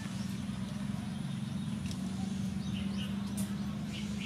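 A steady low motor hum, with a few faint bird chirps over it.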